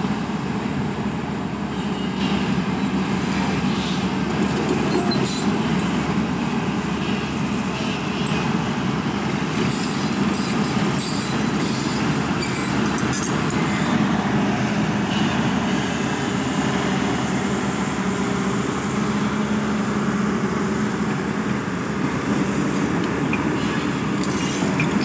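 Hyundai 210 Smart tracked excavator's diesel engine running steadily close by, a constant low drone that holds level throughout.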